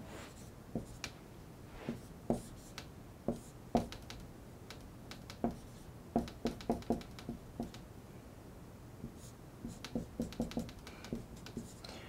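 Dry-erase marker writing on a whiteboard: short, quiet taps and squeaky strokes in scattered bursts as a chemical structure is drawn.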